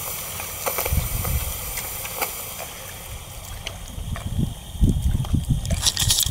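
Wind buffeting the microphone in gusts, over a faint steady hiss; near the end, rustling and knocks as the camera is moved.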